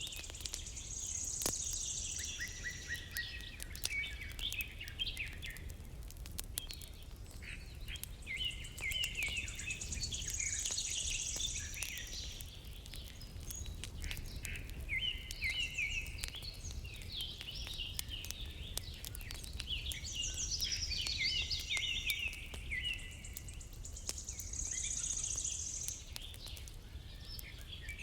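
Songbirds singing in repeated bouts of quick chirping phrases, with scattered sharp crackles of a fire over a steady low rumble.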